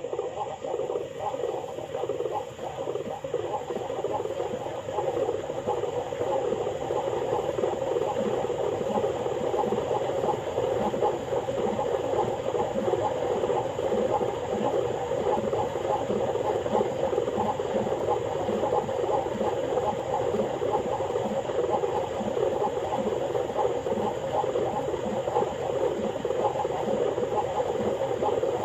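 Pigeons cooing continuously, a dense throaty burbling with a low note repeating evenly underneath.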